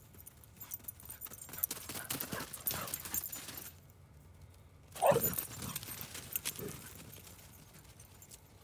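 Footsteps crunching over thin snow on grass, a quick run of crunches that stops for a moment, then a short loud call falling in pitch just after five seconds, with a few fainter ones after it.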